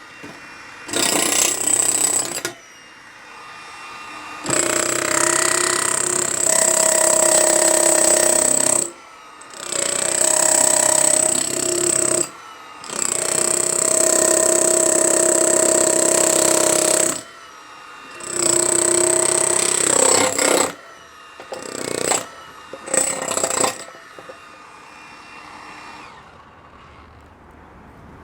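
Hilti jackhammer breaking up concrete in repeated bursts of one to four seconds, stopping and starting about seven times. The hammering stops for the last few seconds.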